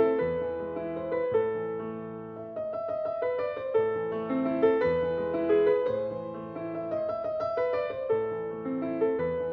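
Background piano music: a gentle melody of single notes over sustained low chords.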